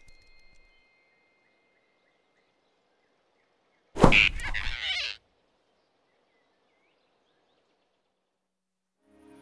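One sudden, loud cartoon hit sound effect, lasting about a second, as a large animated rabbit's hand grabs a flying squirrel. Near silence before and after it.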